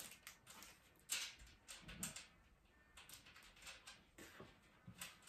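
Near silence with a few faint, short clicks and rustles from small plastic trolley parts and a paper instruction sheet being handled.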